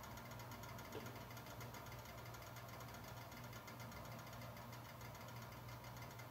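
Eggs frying in a stainless steel skillet: a faint, steady sizzle over a steady low hum, with one small tick about a second in.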